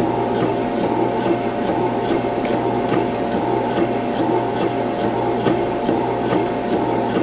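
Conveyor belt running steadily: a continuous mechanical noise with a low hum, and light clicks repeating evenly about two to three times a second.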